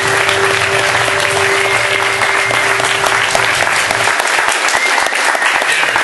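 Audience applauding a guest's entrance, with walk-on music underneath that cuts off about four seconds in while the clapping carries on.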